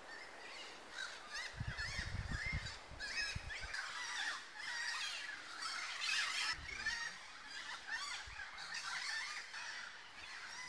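A chorus of wild birds chirping and calling, many short rising and falling calls overlapping, with a few low rumbles of wind or handling on the microphone about two seconds in and again near the middle.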